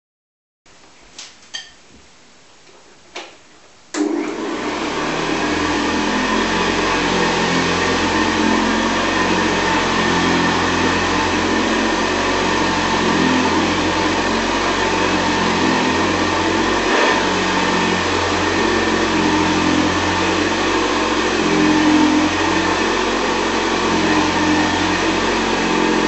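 Hoover Senior 6525C vintage upright vacuum cleaner: a few clicks, then the motor is switched on about four seconds in and runs loud and steady as the cleaner is pushed over carpet.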